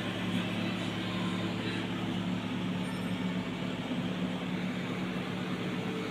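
Steady low machine hum with a constant drone and an even hiss behind it.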